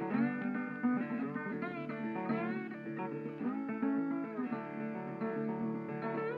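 Background music: plucked guitar playing a melody with sliding, bending notes over a steady chordal backing.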